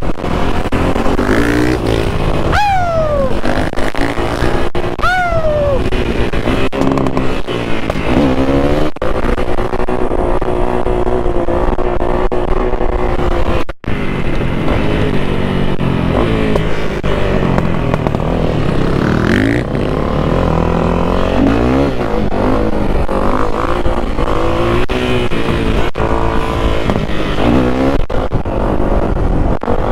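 Off-road vehicle engine being ridden, its pitch rising and falling again and again as it is revved and shifted, with two sharp drops in pitch a few seconds in. The sound cuts out briefly about fourteen seconds in.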